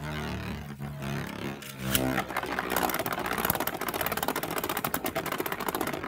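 Cho-Z Achilles Beyblade spinning in a yellow plastic Beyblade Burst stadium. It starts as a low whirr, then from about two seconds in turns to a fast, continuous rattling clatter as the top runs across the stadium floor.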